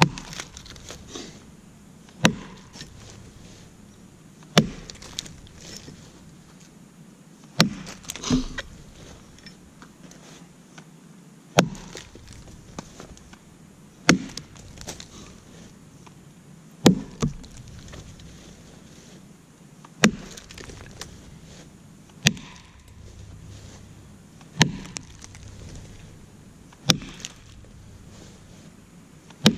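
Double-bit axe chopping into a very dead, dry oak log: a sharp knock each time the steel bites the wood, a dozen or so strikes at about one every two to three seconds, some followed by a smaller knock.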